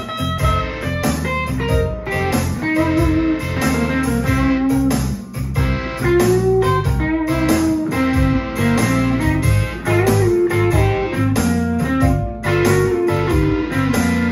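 Amplified Explorer-style electric guitar playing a bluesy instrumental melody of held, bending notes over a steady rhythmic low accompaniment.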